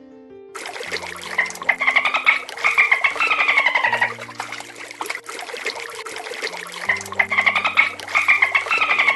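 Sea lion colony at the water's edge: a dense, rough din with two runs of rapid squawking calls that fall in pitch, one about a second in and another near the end. Soft background music plays underneath.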